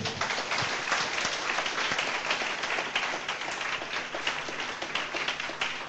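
Congregation applauding: many people clapping together, fading slightly toward the end.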